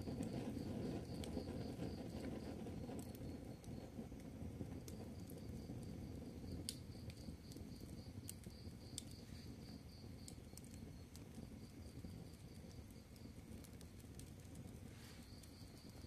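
Wood fire burning: a soft low rustle of flames with scattered sharp crackles and pops, growing a little quieter. A high, pulsing insect trill runs behind it and stops for a few seconds near the end.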